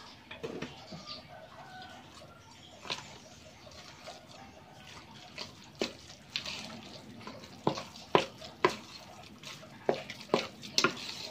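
Seasoned ground pork being mixed in a stainless steel pot with a spatula and by hand: soft wet stirring, with sharp knocks of the spatula against the pot that come more often in the second half.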